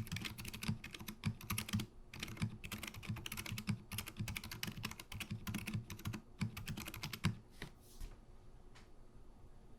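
Fast typing on an Akko ACR Top 40 mechanical keyboard fitted with stock, lightly lubed FEKER Aphonia silent switches: soft, muted keystrokes with a low thud. The typing stops about three-quarters of the way through, after a few last strokes.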